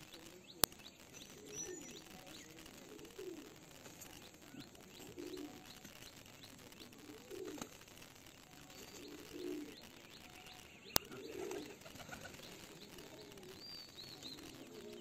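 Flock of domestic fantail (lakka) pigeons cooing over and over in low, rolling calls every second or two. Two sharp clicks stand out, about half a second in and about eleven seconds in.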